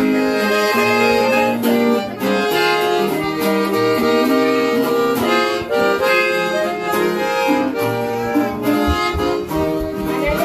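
Accordion playing a quick melody over a steady rhythmic band accompaniment.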